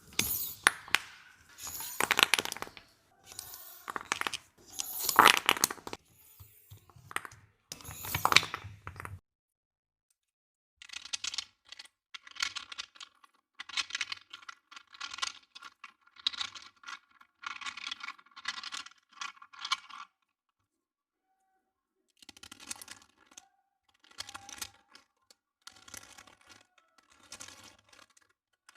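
Crunchy slime or squishy toy textures being worked by hand, giving crackling, tearing crunches. The first nine seconds hold loud, dense crackling; after a short pause come softer crunches at about one a second, then another pause and a further run of similar crunches.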